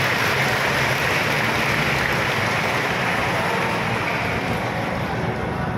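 A large crowd applauding and calling out in a big, echoing church, the noise slowly dying down.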